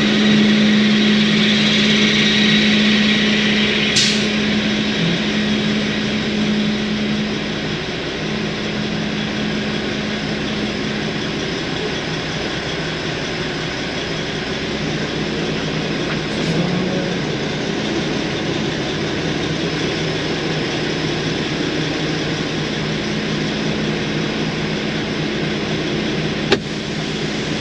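Freightliner Coronado glider semi truck's diesel engine running at low speed, heard from inside the cab as a steady hum, with one sharp click near the end.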